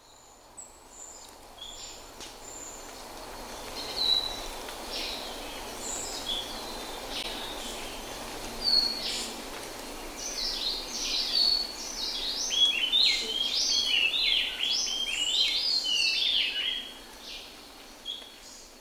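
Rainforest ambience: many birds chirping and whistling over a steady background hiss. The calls grow denser and louder from about ten seconds in until near the end.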